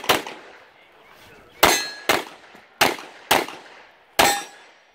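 Six shots from a Glock 34 9 mm pistol fired in rapid succession, mostly in pairs about half a second apart, two of them followed by a brief ringing tone.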